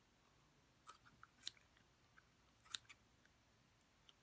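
Faint handling sounds from a cut-open slime-filled squishy stress ball: a few small sharp clicks and sticky crackles, in a cluster about a second in and another near three seconds.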